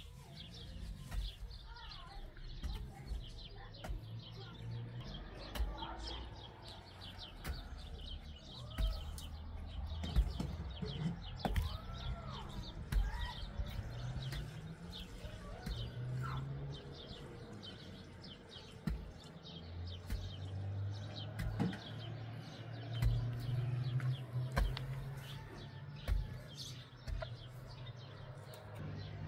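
A mattock chopping into packed dry earth, with repeated dull strikes as the soil is broken up, while small birds chirp throughout.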